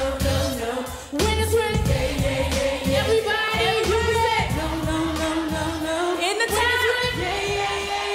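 Female R&B vocal group singing over backing music with a regular bass beat; the lead voice slides between long held notes.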